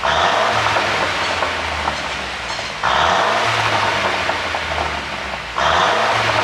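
2018 Mercedes-Benz C200 (W205) exhaust on a pop-and-crackle ECU tune, revved in repeated blips. Three times it starts suddenly and fades over nearly three seconds with a crackling, popping burble.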